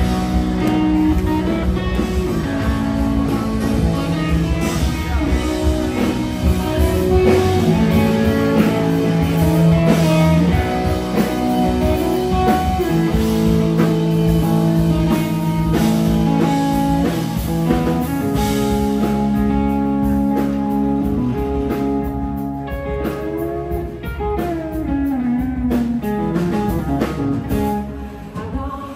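A live band playing bluesy rock: an electric guitar plays held, singing notes over drums, with notes bending up and down near the end.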